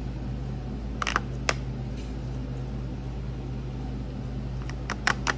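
Steady low hum of room background, with a few sharp clicks of a metal spoon against a plastic bowl as ceviche is scooped out: a couple about a second in and a quick cluster near the end.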